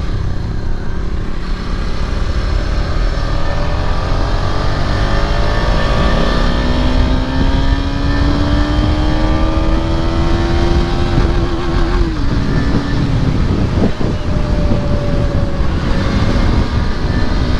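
KTM Duke 250's single-cylinder engine through an Akrapovic exhaust, ridden on the road with heavy wind rumble on the microphone. The engine note climbs steadily for several seconds as the bike accelerates, then falls away about twelve seconds in. A lower steady note holds near the end.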